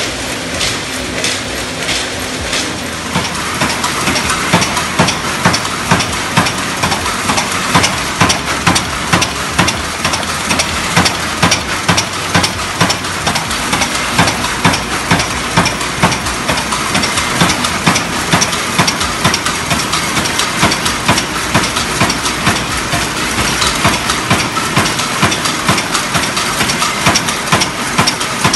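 Paint can manufacturing machines running: a fast, continuous clatter of repeated mechanical strokes over a steady hiss, growing louder about four seconds in.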